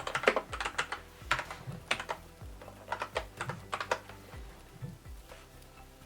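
Typing on a Kinesis mWave mechanical keyboard: keystrokes clicking quickly in the first second, then in small irregular runs with short gaps.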